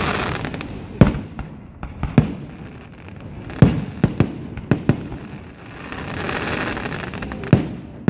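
Aerial firework shells bursting in a display: a series of sharp bangs, about seven, irregularly spaced. A long rushing hiss swells in the second half before a last bang near the end.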